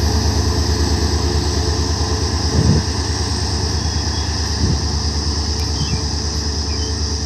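WDG4 diesel locomotive's EMD 16-cylinder two-stroke engine running with a steady low rumble and a fast, even pulse. Two dull thumps come through, about 3 and 5 seconds in.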